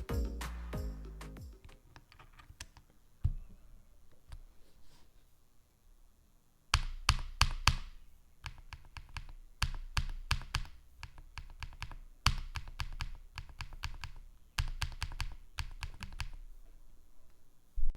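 Typing on a mechanical keyboard fitted with Kailh Box linear switches: several bursts of rapid keystrokes with short pauses between them. Background music fades out at the start.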